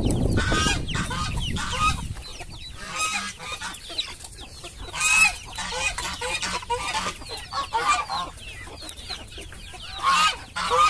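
A flock of chickens clucking, with short calls coming one after another. Wind rumbles on the microphone for the first two seconds.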